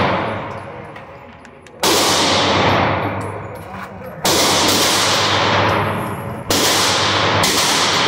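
Pistol shots, four of them a couple of seconds apart, each cracking sharply and then echoing away in a long fading reverberation.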